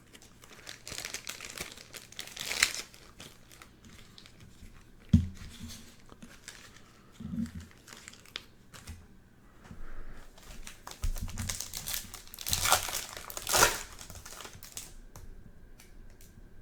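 Plastic packaging crinkling in two bouts, about a second in and again near twelve seconds in, with a few soft thumps in between.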